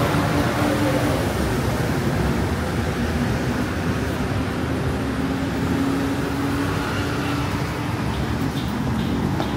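Steady city road traffic: cars, vans and motorbikes running along the street, with a steady low hum through the middle stretch.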